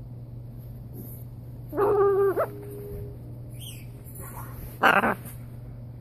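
Blue-and-gold macaw calling: a short pitched call about two seconds in, then a brief harsh squawk about five seconds in.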